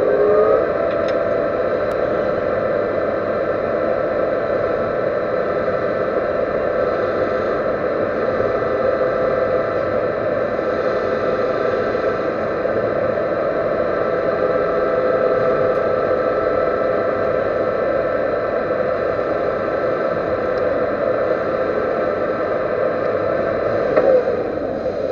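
Metal lathe running at steady speed with a constant whine, its spindle having just come up to speed.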